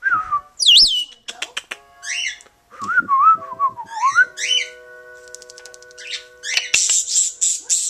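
African grey parrot whistling, clicking and chirping. A high gliding whistle comes about a second in, then rapid clicks, rising chirps and a wavering whistle around three to four seconds in, and a string of short hissy bursts near the end.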